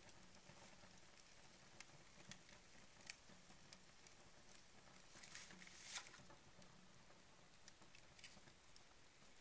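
Paper and cardboard burning on a fireplace grate, with faint, irregular crackling. The crackles come thicker about five seconds in and end in one sharper pop near six seconds.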